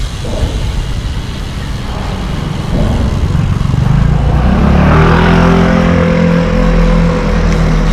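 Wind rushing over the microphone of a moving bicycle, with a motor vehicle's engine coming in about three seconds in and growing louder, then holding at a steady pitch.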